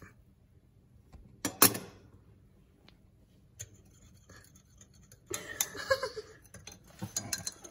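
Metal teaspoon clinking and scraping against a ceramic mug while stirring sugar into coffee. There is a sharp clink about a second and a half in, and a run of quicker clinks and rattles past the middle.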